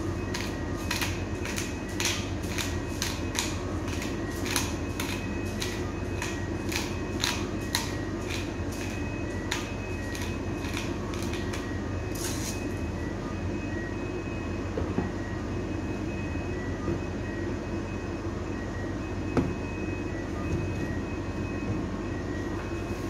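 Pepper mill being twisted to grind peppercorns, giving a run of sharp crunching clicks, about two or three a second, that stop about halfway through. A steady low rumble runs underneath.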